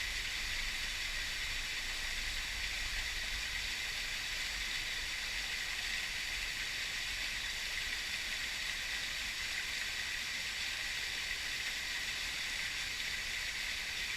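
Waterfall and river water rushing, a steady unbroken hiss with no change in level.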